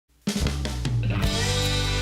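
Background music with a steady beat, starting abruptly about a quarter second in.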